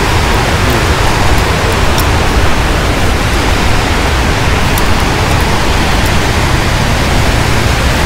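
Steady, loud rush of river water running over rapids: an even hiss with a deep rumble beneath it.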